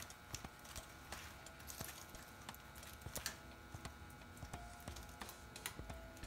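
Old steel bicycle chain clinking and ticking as it is fed by hand through the rear derailleur's pulleys, in light clicks at irregular intervals.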